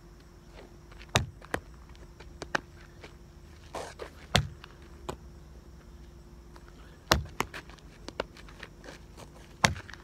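A handful of separate sharp knocks and thumps, spaced irregularly a second or more apart, over a faint steady hum.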